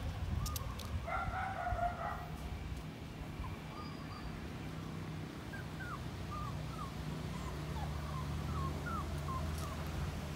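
A distant rooster crows once, about a second in, for about a second. Then comes a run of a dozen or so short, faint whimpering squeaks from a puppy, over a steady low hum.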